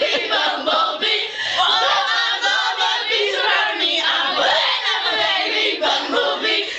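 A group of girls singing together, many voices overlapping.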